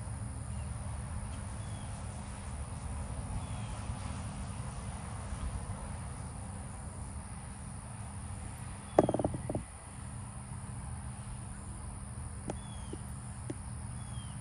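Outdoor wind noise: a steady low rumble on the microphone, with faint high chirps repeating now and then. A brief loud burst of noise comes about nine seconds in.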